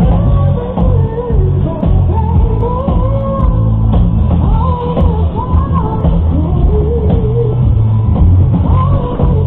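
Loud rock music: a singer's voice over drums and guitar.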